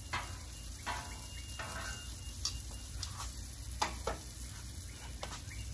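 Sausages and pancakes sizzling on a Blackstone steel flat-top griddle, with irregular clicks and scrapes of metal tongs against the griddle top as the sausages are slid over.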